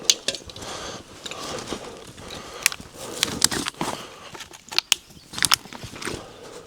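Camping gear being handled and packed up: irregular rustling with scattered sharp clicks and knocks.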